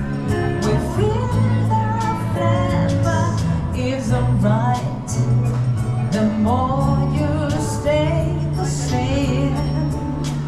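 Pop song with a singer over a steady drum beat.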